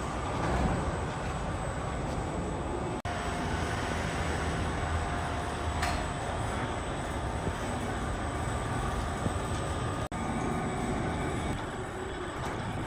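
Overhead crane hoisting a large log on wire-rope slings: a steady mechanical rumble that drops out briefly about three seconds in and again near ten seconds.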